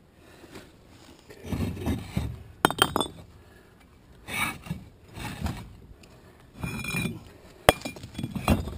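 Concrete pavers being lifted and shifted off a stack by hand, scraping and clinking against one another in several bursts, with a few sharp knocks.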